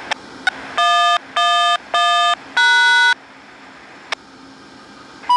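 Electronic tone signals from a railway radio scanner: two clicks, then four beeps, three of them equal and the fourth lower and longer. Another click follows, and short higher beeps come near the end.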